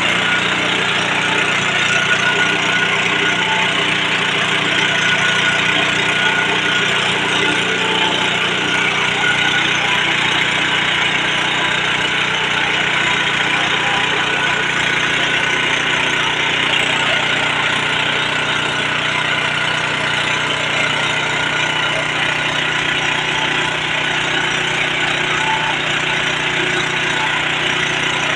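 Mini rice milling machine running steadily, a loud, even machine drone with a constant pitch.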